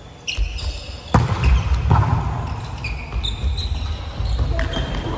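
A volleyball being struck, with a sharp echoing smack about a second in and duller thuds after it, amid short high squeaks of sneakers on the wooden gym floor.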